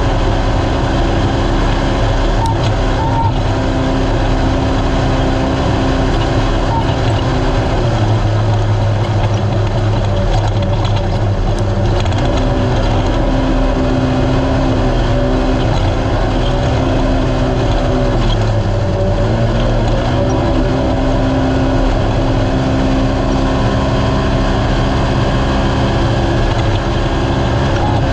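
Naturally aspirated UTV race car engine running hard at high revs over rough-road and wind noise. The revs drop twice, about eight and eighteen seconds in, and climb back each time.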